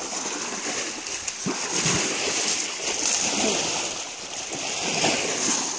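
Asian elephant splashing and sloshing in shallow muddy water: irregular splashes over a steady high hiss.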